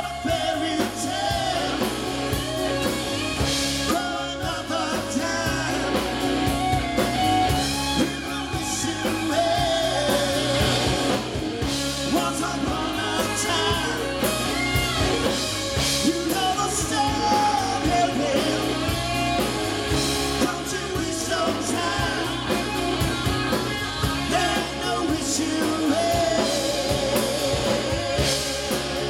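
Southern rock band playing live: a lead vocal over electric and acoustic guitars, keyboard and a drum kit keeping a steady beat. Near the end the singer holds a long, wavering note.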